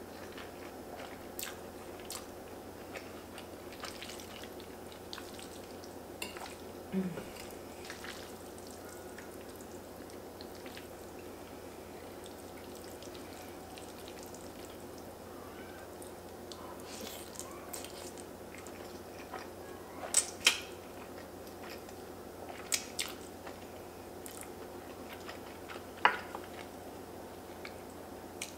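Quiet mukbang eating sounds: fettuccine being chewed and slurped, with a few sharp clicks and taps of a metal fork and wooden spoon on a ceramic plate, the loudest near the end. A steady faint hum sits underneath.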